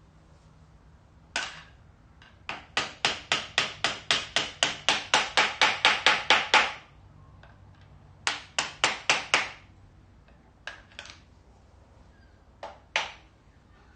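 Sharp metallic taps in quick runs of about five a second, from a hand tool working at the timing-chain sprocket bolts of a Fiat 500 engine. There is a long run of about fifteen taps, then a run of five about eight seconds in, then a few single taps near the end.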